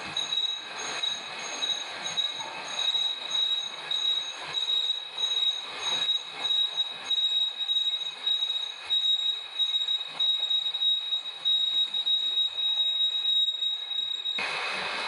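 Metal lathe cutting steel, the tool giving off a steady high-pitched squeal over pulsing cutting noise. Near the end the squeal cuts off suddenly and a steady hiss remains.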